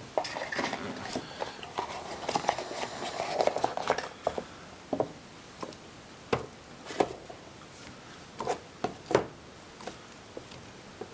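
Hands handling the cardboard box and plastic-wrapped parts of an Apple TV package: a few seconds of busy rustling and small clicks, then scattered light knocks and taps.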